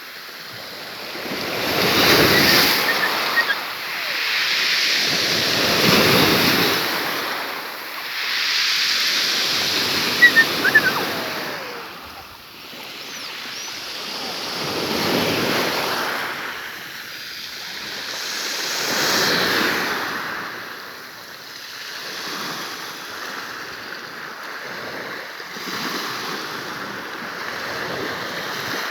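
Sea waves breaking and washing up the shore, each surge rising and falling away every four to five seconds, with a few brief clicks about ten seconds in.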